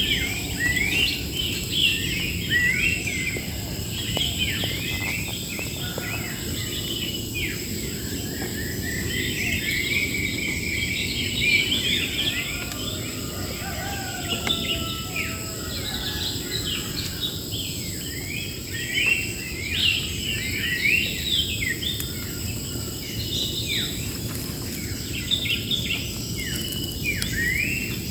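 Many small birds chirping and singing over one another in quick, rising and falling notes. Under them runs a steady, high insect drone and a low, even rushing noise.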